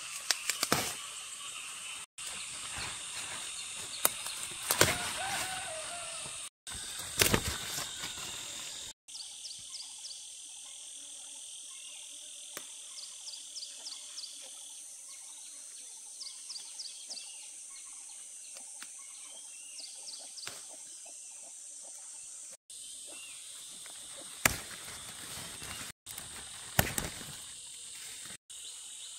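A steady high-pitched insect buzz, with a few brief loud knocks or clatters in the first several seconds and again near the end. The sound breaks off abruptly several times where clips are cut together.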